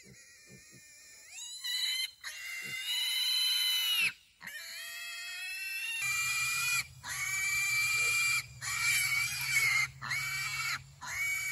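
Piglet squealing while held down and castrated. The squeals are high-pitched and start about a second in, first as two long drawn-out screams, then as a run of shorter squeals one after another with brief breaks.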